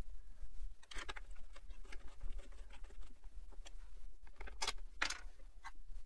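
Small clicks and scrapes of screws and a screwdriver being handled against the plastic inner panel of a motorcycle fairing, with a few louder scraping rustles about a second in and twice near the end, over a low steady hum.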